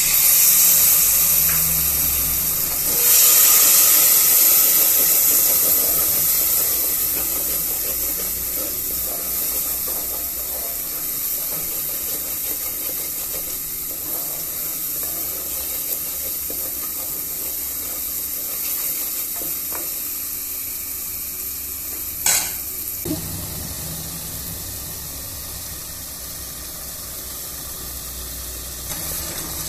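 Hot masala sizzling and hissing as water is poured into it in an aluminium pressure cooker pan, loudest at first and again about three seconds in, then settling into a steady sizzle that slowly fades as a wooden spatula stirs it. A single sharp knock about twenty-two seconds in.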